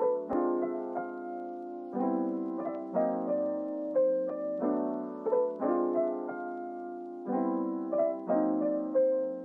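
Background music: a soft piano tune with chords changing about once a second.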